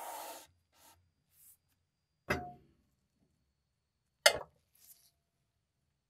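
A sandblasted cast iron grill pan is set down onto a digital kitchen scale, giving two sharp knocks: the first about two seconds in with a short metallic ring, the second about four seconds in and louder. A brief scrape at the start comes as the scale slides across the countertop.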